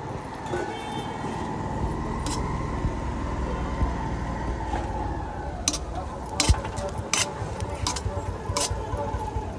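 Street traffic with a passing vehicle's engine running steadily for the first five seconds or so, then a run of sharp clicks, one or two a second, through the last few seconds.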